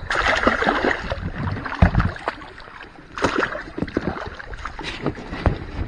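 A pike thrashing and splashing at the water's surface beside an inflatable boat, the splashing heaviest in the first second, then a few sharp knocks and smaller splashes as it is scooped into a landing net.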